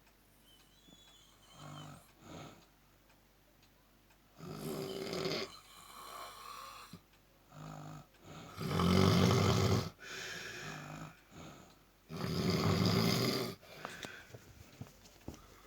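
Snoring while asleep: three long snores about four seconds apart, the last two the loudest, with quieter breaths between them.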